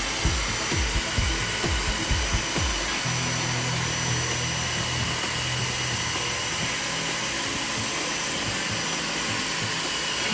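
Dyson V6 cordless stick vacuum running steadily, its motor giving a high-pitched whine over a dense rush of air, with techno background music underneath.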